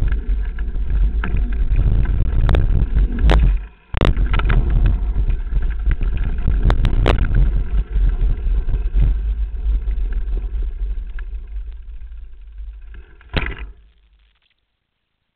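A mountain bike descending a dirt trail at speed, heard on a handlebar-mounted camera: heavy, low wind and trail rumble with sharp knocks and rattles from the bike over bumps. The rumble drops out briefly about four seconds in, fades as the bike slows, and cuts to silence near the end.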